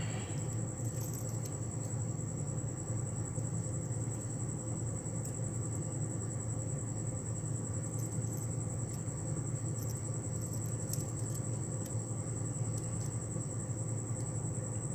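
Steady low background hum with a constant high-pitched whine, and a few faint light clicks of split-ring pliers working a treble hook and split ring on a lure.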